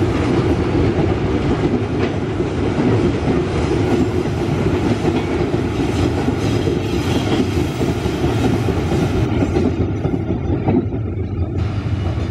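Freight train of steel hopper wagons rolling past, a steady rumble and clatter of wheels on the rails.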